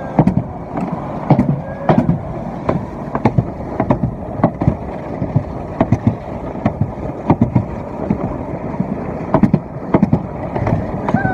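Alpine coaster sled running along its rail: a steady rolling rumble from the wheels, with frequent sharp clacks, about two or three a second.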